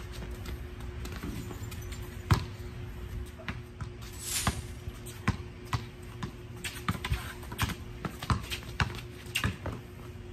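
Basketball dribbled on a concrete court: irregular sharp bounces as a player drives to the hoop, about one to two a second.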